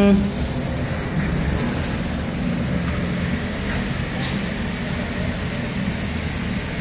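Steady loud rumbling noise with a hiss, like a running engine or vehicle. It opens with the end of a loud pitched tone that steps down in pitch and cuts off just after the start.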